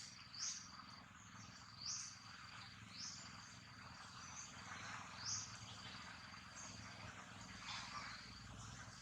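Faint outdoor insect chorus: a steady high-pitched drone with short, rising high chirps every second or two.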